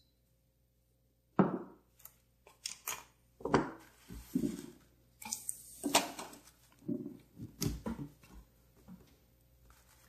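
Small plastic repair-kit packets being handled on a wooden table: a run of crinkles, rustles and light knocks starting about a second and a half in and thinning out after about eight seconds.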